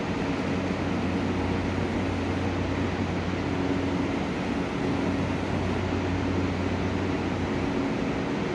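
Steady hum of a JR West 683 series electric train standing at the platform with its onboard equipment running, a low drone with a few constant tones under an even whir.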